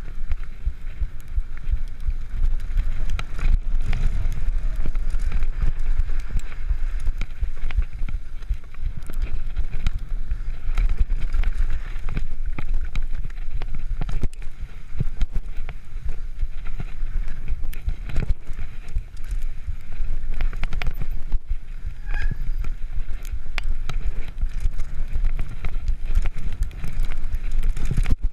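Wind rumbling on the camera microphone during a fast downhill mountain-bike descent, with the tyres running over dry dirt and the Cannondale Claymore full-suspension bike rattling and knocking over bumps throughout.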